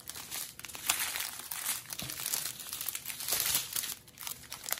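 Clear plastic zip bags of diamond-painting drills and the plastic film over the canvas crinkling as they are handled, a string of irregular crackles.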